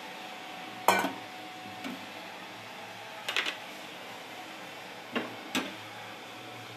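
Stainless steel bowls being handled and set down: one sharp clank about a second in, then several lighter clinks and knocks, over a steady background hiss.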